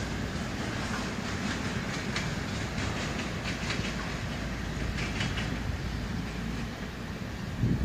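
Departing passenger train's wheels clicking and clacking irregularly over rail joints and points as it pulls away, over a steady low rumble.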